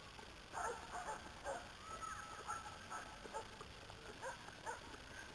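Sled dogs giving a scatter of faint short whines and yips, several falling in pitch.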